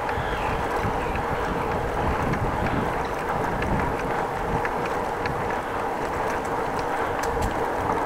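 Steady wind noise on the microphone of a camera on a moving bicycle, mixed with the hum of the tyres rolling on the paved path. A few light clicks or rattles come in over the second half.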